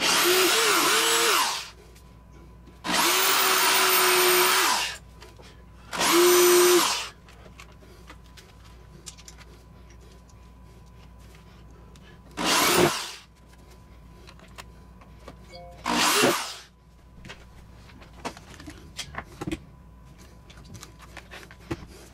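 Handheld power drill working into the pine shelf frame in five runs: three of one to two seconds each in the first seven seconds, then two short ones, near the middle and about two-thirds through, whose pitch falls as the motor slows.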